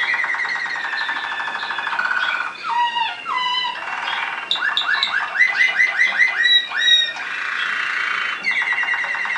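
Waterslager canary singing: a fast rolling trill, then sliding notes about three seconds in, then a series of quick rising, bubbling notes, the loudest part of the song. The rolling trill comes back near the end.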